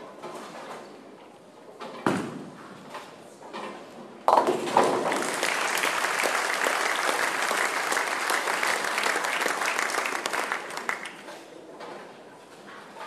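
Tenpin bowling ball striking the remaining pins with a short clatter about two seconds in, converting a spare. A couple of seconds later a crowd breaks into applause and cheering, which goes on for about seven seconds before dying down.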